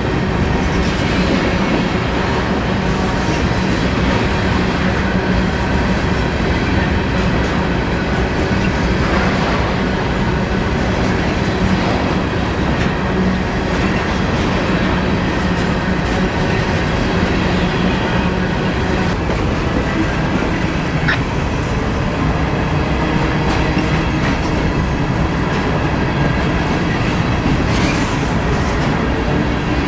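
Empty grain train of covered hopper cars rolling past at a steady speed, with steel wheels clattering over the rail joints.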